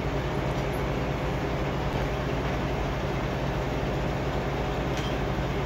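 Milk tanker truck running steadily at the collection stop, a continuous low mechanical hum and drone.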